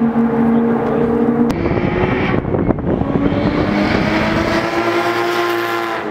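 Nissan Skyline GT-R cars passing at full throttle. A steady high engine note breaks off abruptly about a second and a half in. After a rushing noise, another engine climbs steadily in pitch as it accelerates.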